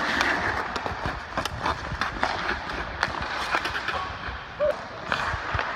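Ice hockey skate blades scraping and carving on rink ice, with scattered sharp clicks and knocks of stick and puck.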